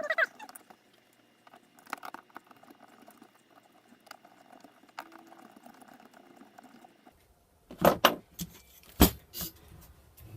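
Small metal parts and tools clinking and rattling as a servo is fitted into a metal robot-arm bracket. Faint scattered clicks give way to a handful of sharp knocks near the end.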